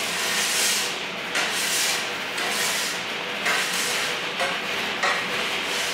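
Hands and tools working against metal parts inside an excavator final drive housing: repeated rubbing and scraping strokes, about one a second, over a steady hiss.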